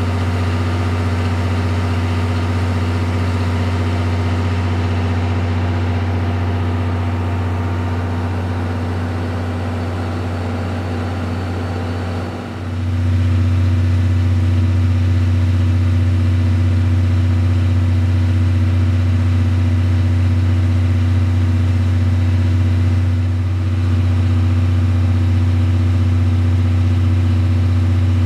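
Large diesel engine idling steadily with a deep, even hum. It dips briefly about twelve seconds in, then settles back to the same steady running.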